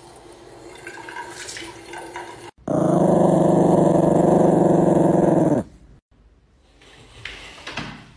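Yorkshire terrier growling, one steady rough growl lasting about three seconds, with lips drawn back over its teeth. Before it a tap runs into a basin.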